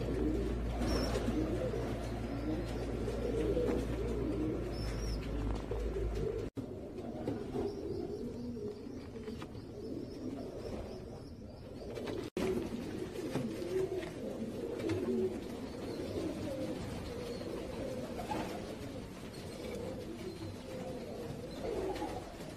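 Domestic fancy pigeons cooing, several at once, their low calls overlapping without a break. The sound cuts off abruptly twice and picks up again, and a low hum underlies the first few seconds.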